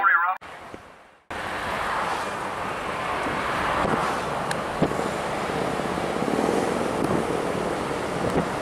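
Intro music cutting off, then after a short gap a steady rush of wind on the microphone by the river, with a few faint knocks.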